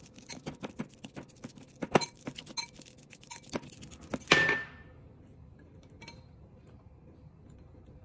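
A utensil clinking and tapping against a bowl in quick, irregular strokes as a banana is mashed in it, the loudest knock about four seconds in, then the clinking stops.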